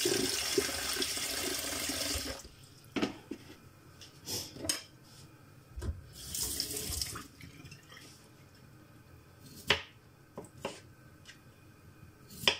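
Kitchen tap running into a plastic bowl as peeled potatoes are rinsed, shutting off about two seconds in. Then scattered knocks and clatter on the counter, a brief second run of water midway, and a sharp knock near the end as a knife goes into the potatoes.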